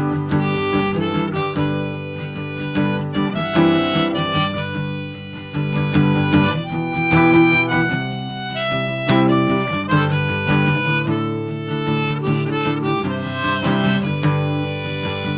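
Instrumental passage of an indie rock song: a harmonica plays a melody over strummed acoustic guitar.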